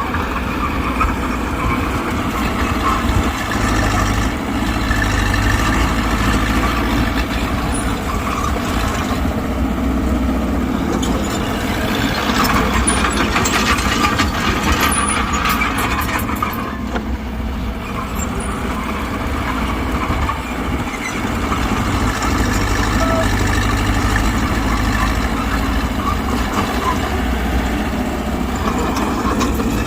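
Diesel engine of a Mitsubishi BD2G bulldozer running steadily while working, with a stretch of metallic clattering around the middle.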